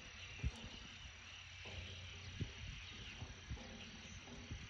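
Steady evening chorus of calling insects at a marsh, a faint, even high buzzing drone, with a few soft low bumps.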